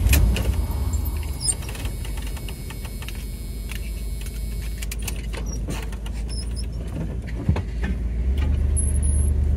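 Vehicle engine running with a steady low rumble, then a single clunk from the driveline about seven and a half seconds in as it moves off, and the engine pulls harder near the end. The clunk is one the driver takes for worn driveshaft U-joints.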